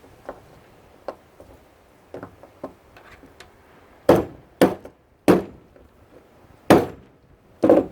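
Hammer blows knocking on a shop vac/pressure washer unit to free a part: a few light taps, then five hard, uneven strikes in the second half.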